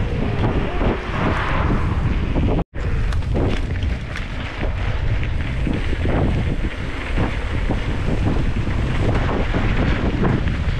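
Wind buffeting the microphone of a camera riding along on a mountain bike, with many small knocks and rattles throughout. The sound cuts out completely for an instant about two and a half seconds in.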